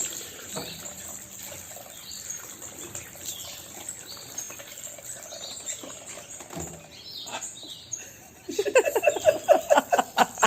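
Bird chirps and short calls, scattered and fairly soft. About eight and a half seconds in, a louder, rapid stuttering sound begins and runs on.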